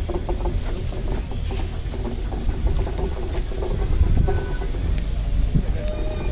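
Steam locomotive on the move: a steady low rumble with scattered clanks and a few sharp knocks.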